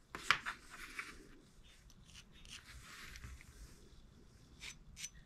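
Small screwdriver tip scraping and tapping lightly against a brass crankcase half while assembly lube is dabbed onto the main journals: a sharp click just after the start, faint rubbing, and a few light ticks near the end.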